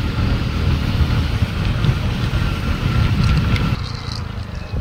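Wind buffeting the microphone of a moving motorcycle rider, over a steady low road and engine rumble. It eases off about four seconds in.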